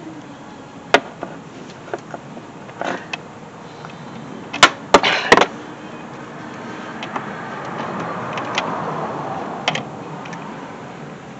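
Scattered small metallic clicks and knocks of a 5/32 hex wrench working the expansion valve's hold-down bolt, with three sharp clicks close together about halfway through. A soft rustle swells near the end.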